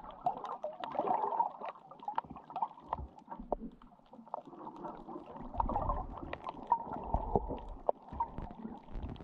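Muffled underwater sound heard through a GoPro's waterproof housing: a dull, hollow hiss with irregular sharp clicks and crackles throughout, and low thumps in the second half.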